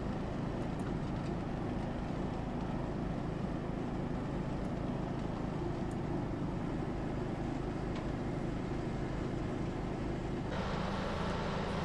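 Grillo Climber 7.13 ride-on mower's engine running steadily as the mower drives across the grass, with the tone changing slightly about ten and a half seconds in.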